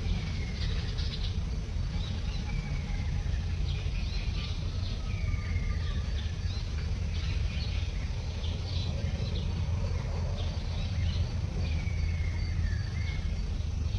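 Birds calling, short falling whistles and chirps every second or two, over a steady low rumble.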